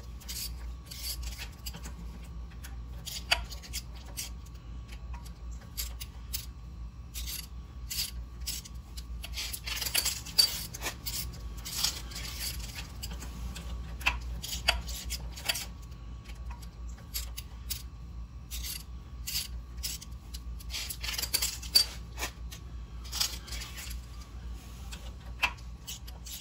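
Hand tools and metal parts being handled and set down on a concrete garage floor: scattered clinks and clicks with short stretches of scraping and rubbing, over a steady low hum.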